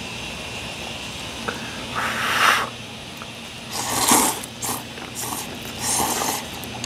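Noodles being slurped in several loud slurps, about two, four and six seconds in, over a faint steady hum in the room.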